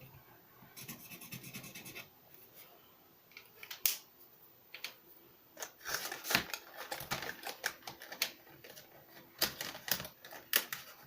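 Dual-tip art markers handled and swatched on paper: scattered sharp clicks of marker caps coming off and snapping back on, with stretches of the tip scratching across the paper about halfway through.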